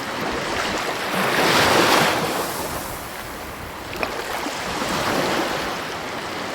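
Sea waves breaking and washing, swelling loudest about a second and a half in and again about five seconds in, with a brief tick near four seconds.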